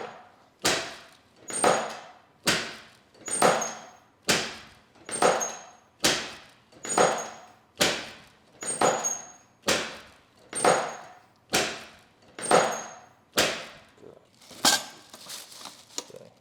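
A steady series of about sixteen sharp knocks, roughly one a second, each with a short fading ring, made during chiropractic treatment.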